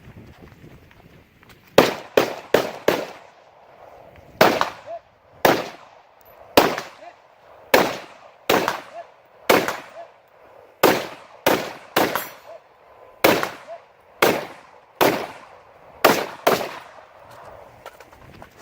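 AR-15 rifle fired semi-automatically in a string of about nineteen shots: a quick burst of four near the start, then shots spaced roughly a second apart, each with a short ring-out.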